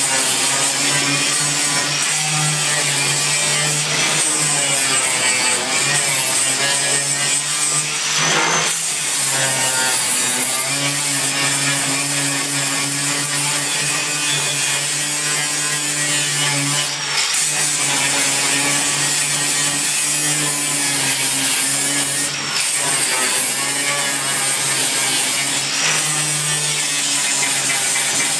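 Electric angle grinder with an abrasive disc grinding and sanding the steel floor of a pickup truck bed: a continuous grinding that dips briefly a few times as the disc shifts on the metal.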